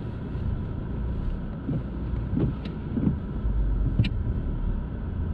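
Car running at low speed while parking, heard from inside the cabin as a steady low rumble, with a few sharp clicks.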